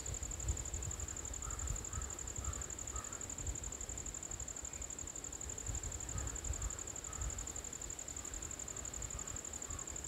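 Steady high-pitched insect chorus, with a low rumble underneath and faint short chirps now and then.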